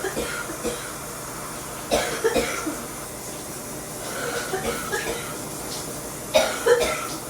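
A person coughing in short fits: a couple of coughs about two seconds in, then two louder, harder coughs near the end.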